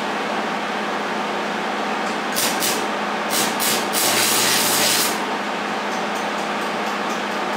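Stick welder arc on mild steel: several short crackling bursts as the arc is struck and broken, then a sizzling weld bead lasting about a second, over a steady hum.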